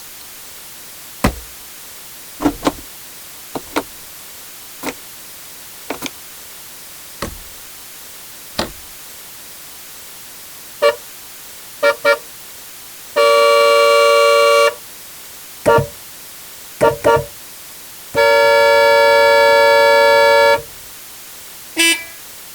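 A string of separate mechanical clicks and clunks from motorcycle equipment, each on its own a second or so apart. About eleven seconds in, vehicle horns start honking: short taps, double toots and two long steady blasts.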